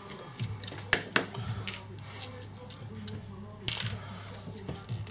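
Irregular sharp metallic clicks and clinks of small screws and a screwdriver as a portable speaker's casing is unscrewed and taken apart.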